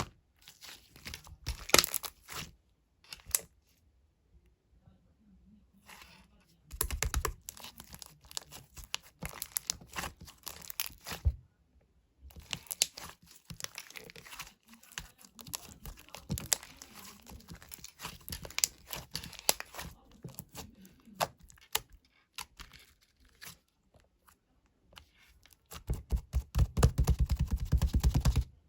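Bursts of crinkling, crackling and tearing sounds, made up of many quick clicks. A louder, denser run with a heavier low end comes near the end.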